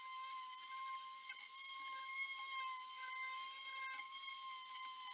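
Corded electric palm sander running steadily against a cured epoxy resin table top, a steady high whine.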